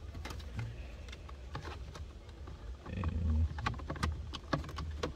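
Plastic steering-column shroud being lined up and pressed into place, giving scattered light clicks and knocks of hard plastic over a steady low hum.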